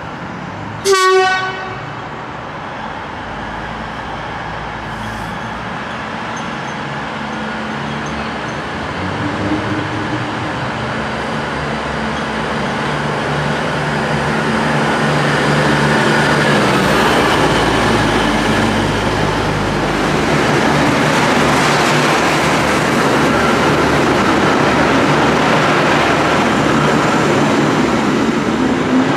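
V/Line VLocity diesel multiple unit giving one short, loud horn toot about a second in. Its diesel engines and wheels then grow steadily louder as it draws past, loudest in the second half.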